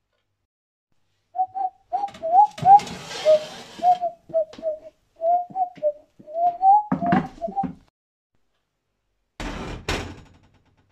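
A person whistling a short tune of quick, gliding notes while handling kitchenware, with knocks and a clatter mixed in. About nine and a half seconds in, a plate clatters onto a stainless steel counter.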